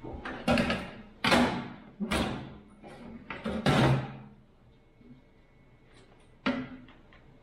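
Diamond-plate metal truck step box clanking and banging as it is wrestled into place on the frame: five heavy knocks in the first four seconds, then another after a short quiet gap near the end.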